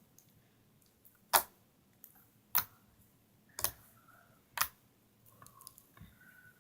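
Milk slime being pressed and folded by hand, cracking with four sharp pops about a second apart as trapped air bursts, with faint squishing between.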